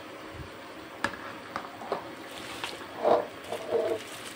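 Soaked rice being tipped into a pot of boiling water: a few sharp clicks, then soft, wet squelching splashes about three seconds in and again shortly after.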